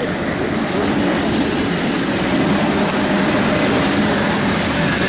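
Freight train of oil tank wagons, hauled by an electric locomotive, passing close by: a loud, steady rush of wheel and rail noise that swells about a second in.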